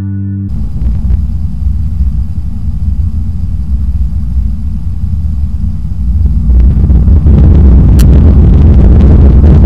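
Boeing 737-800 cabin noise: a steady low rumble of the engines and rolling wheels while taxiing, swelling sharply about six and a half seconds in and loud from about seven seconds on, as the plane moves onto the runway for takeoff.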